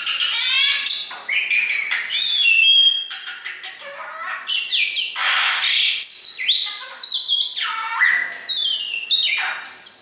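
Caged pet birds calling: a fast, varied string of whistles, chirps, falling sweeps and clicks, with a harsh squawk about halfway.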